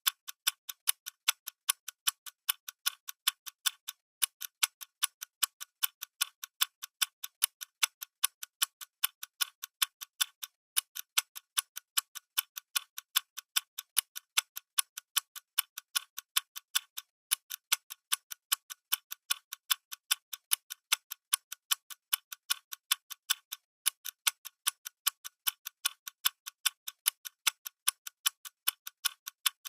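Clock ticking steadily, sharp even ticks in a regular rhythm.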